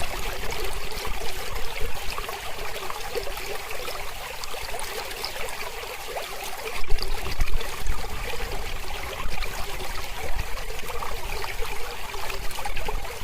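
Mountain river flowing: a steady rush of running water with fine trickling, briefly louder about seven seconds in.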